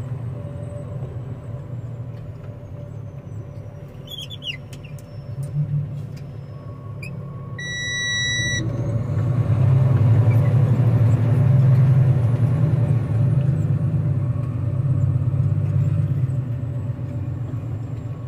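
Freightliner roll-off truck's diesel engine running as the truck drives, growing louder for several seconds from about halfway through as it pulls ahead. A single electronic beep lasting about a second sounds just before it grows louder.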